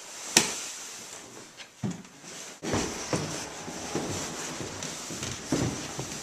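Handling and movement noise: a sharp click near the start, then a run of knocks and thuds about two a second, footsteps on a wooden staircase mixed with the knocks of a handheld camera being carried.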